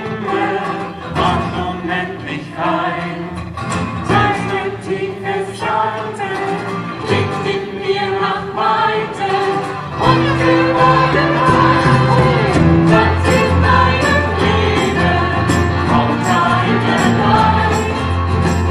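A live acoustic band playing and singing: acoustic guitars, violin and keyboard with voices. About ten seconds in the music gets louder and fuller, with steadier bass notes.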